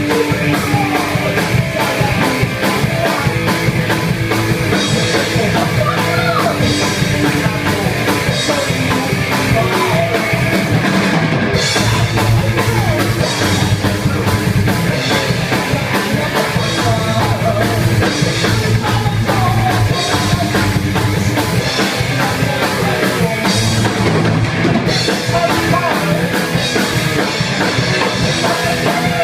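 Loud rock music, punk-like, driven by a drum kit, playing steadily throughout.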